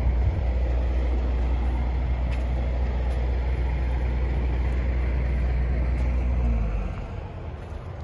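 A vehicle engine running with a steady low rumble, which drops away about seven seconds in.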